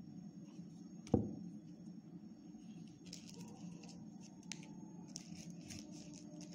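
Hands handling ice-cream sticks and craft paper: a single sharp knock about a second in, then a run of quick, crisp paper rustles from about three seconds on.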